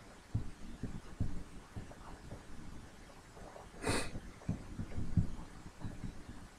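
Irregular low, dull thumps, with one short burst of hiss about four seconds in.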